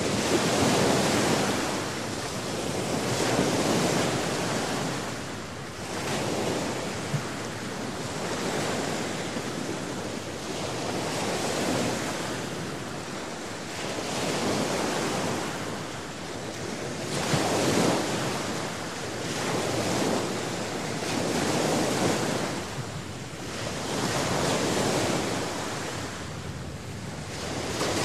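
Stormy sea: waves surging and crashing, swelling and easing every two to three seconds.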